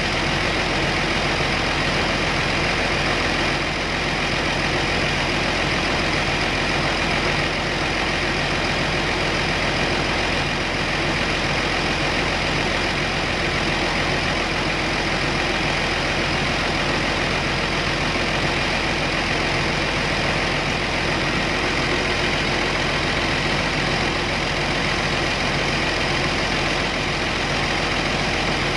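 Kobelco 850 excavator's diesel engine running steadily at idle.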